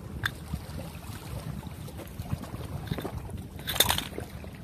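Wind buffeting the microphone in a steady low rumble, with a small click just after the start and a short, louder scuffing noise about four seconds in.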